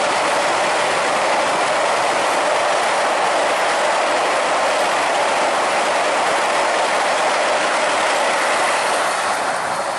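Orange Vande Bharat electric train set passing at speed over a bridge: a steady rushing, rattling noise of wheels on rail. It eases off slightly near the end as the last coach goes by.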